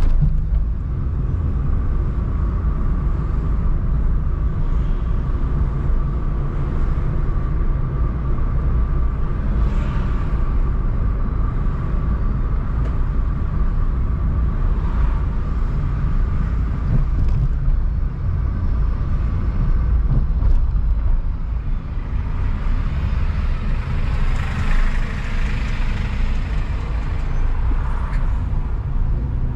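Car driving on city streets: a steady low rumble of engine and road noise, with a faint steady whine, and a brief swell of hiss about three-quarters of the way through.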